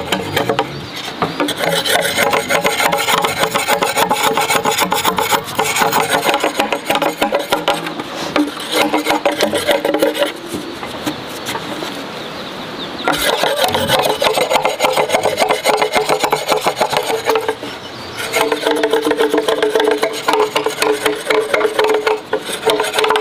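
Machete blade scraping the green skin off a thick bamboo pole in quick repeated strokes. The strokes ease off briefly near the middle, then pick up again.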